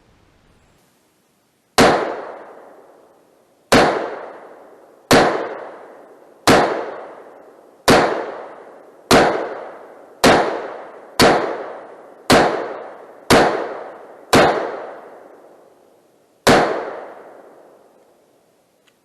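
Twelve gunshots fired one at a time, about one every second or two, each with a long ringing echo that dies away.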